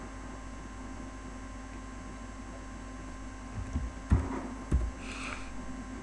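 Steady electrical hum, with a few dull low knocks on the desk a little past halfway as a short message is typed on the computer keyboard.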